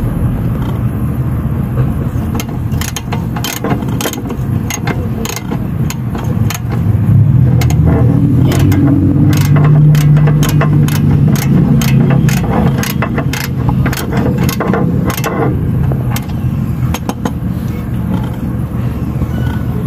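Socket wrench clicking in irregular short strokes as it works a stiff lower brake bolt loose. Under it, a car engine runs steadily, louder through the middle stretch.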